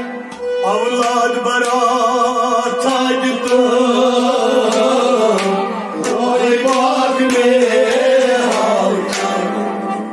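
A male voice sings a melodic devotional kalam over a sustained harmonium accompaniment, with sharp taps scattered through it.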